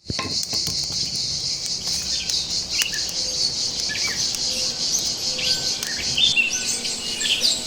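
Birds chirping in short calls over a steady, high, pulsing drone of insects.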